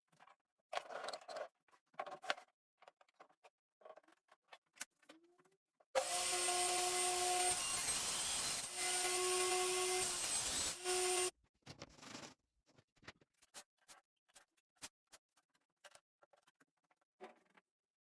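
A handheld power tool runs for about five seconds with a steady whine that breaks off briefly twice. Before and after it come light clicks and knocks of wood pieces being handled.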